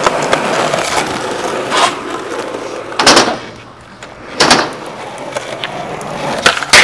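Skateboard wheels rolling on rough concrete, broken by sharp clacks of the board hitting the ground, a loud one about three seconds in and more near the end.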